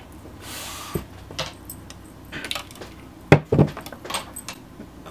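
Small makeup items clicking and clattering as they are handled and sorted through on a table, with a brief hiss about half a second in and two sharper knocks a little past three seconds in.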